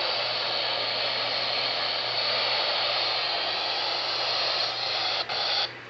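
Weather radio receiver hissing with steady static from a weak NOAA Weather Radio signal, a low hum beneath it; the hiss dips briefly and then cuts off suddenly near the end.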